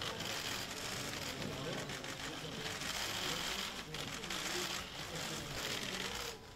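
Indistinct talk of several people in a room, voices overlapping over a steady background hiss.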